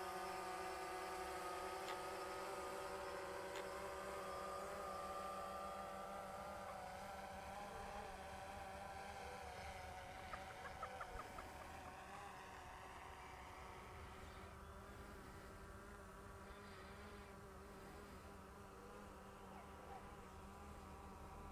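DJI Phantom 3 Professional quadcopter's propellers whining: a buzz of several pitches that waver slightly, growing slowly fainter as the drone flies off across the lake. A short run of faint ticks about ten seconds in.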